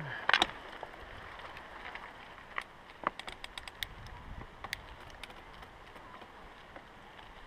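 Scott Scale 970 hardtail mountain bike rolling over a gritty dirt surface: tyre noise with scattered small clicks and rattles from the bike. A short cluster of louder knocks comes just after the start.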